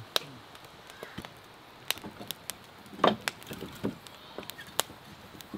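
Wood fire crackling, with irregular sharp pops from the burning split logs and one louder knock about three seconds in.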